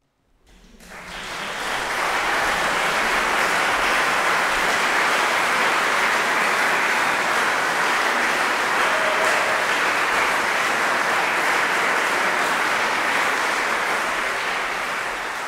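Audience applauding, building up over the first couple of seconds, holding steady, then starting to thin out near the end.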